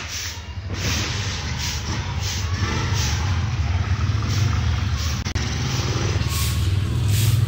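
Small motorcycle engine running as it rides past close by, growing louder toward the end.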